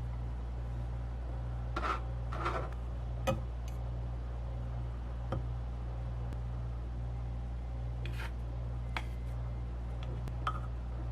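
Light clicks and short scrapes of kitchen utensils and dishes being handled, scattered a few seconds apart, over a steady low hum.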